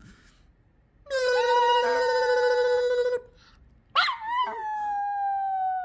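Yorkshire terrier howling: two long, drawn-out howls. The first holds one steady pitch for about two seconds; the second starts with a sharp yelp near the four-second mark, then holds a higher pitch that slowly sinks.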